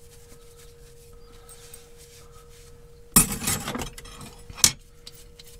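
After a quiet stretch over a faint steady hum, metal cutlery clatters into a plastic cutlery tray about three seconds in, followed by one more sharp clink about a second and a half later.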